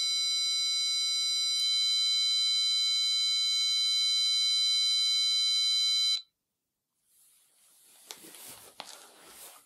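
Electronic tuner's built-in speaker sounding a steady reference A tone, raised by one hertz to 444 Hz: one electronic tone with several overtones and a faint click about one and a half seconds in. The tone cuts off about six seconds in, followed by faint rustling.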